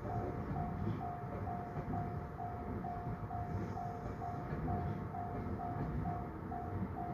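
Japanese level-crossing warning bell ringing steadily at about two rings a second, over the low rumble of a Tobu 10030 series electric train running through the crossing.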